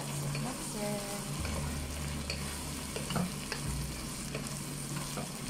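Wooden spoon stirring sliced mushrooms and carrots frying in a coated pot. A light sizzle runs under scattered taps and scrapes of the spoon against the pot.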